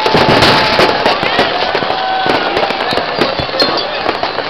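Fireworks and firecrackers going off densely all around: a rapid, irregular string of bangs and crackles over a constant din, with a few long whistling tones from rockets.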